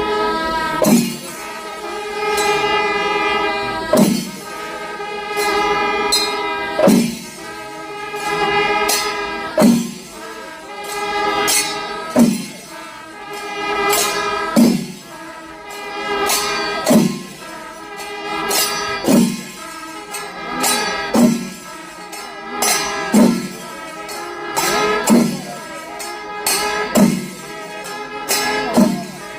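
Music: a held, pitched melody that moves between notes every second or two, with a sharp strike about every two seconds and lighter ones between.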